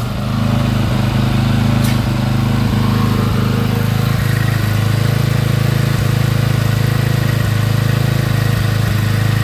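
Double-acting hydraulic pump unit's engine running steadily with an even, low pulsing hum during a test run after servicing.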